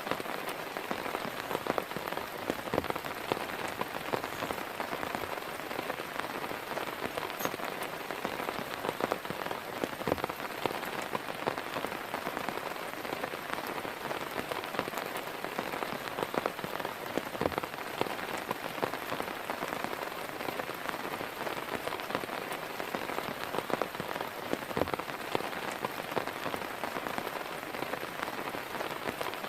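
Heavy rain falling steadily on a surface, a dense patter of drops with now and then a louder single drip.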